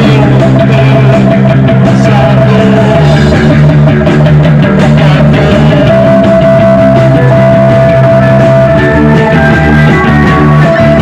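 Loud rock music with electric guitar and drums, playing steadily.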